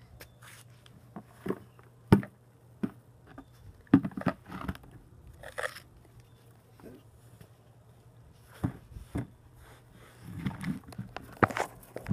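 Irregular knocks, taps and scrapes of handling, loudest about two and four seconds in and again near the end, over a faint steady low hum.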